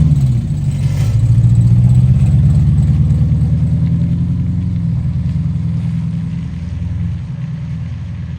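Car engine accelerating, its pitch climbing in the first couple of seconds, then running steadily as it slowly fades.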